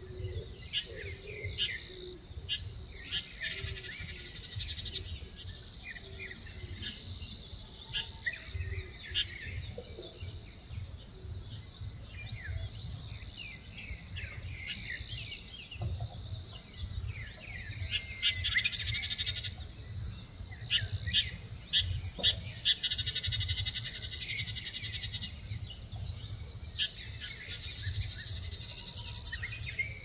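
Wild birds chirping and calling in woodland, short high notes in quick runs throughout, over a steady high buzz that swells several times, with a low wind rumble underneath.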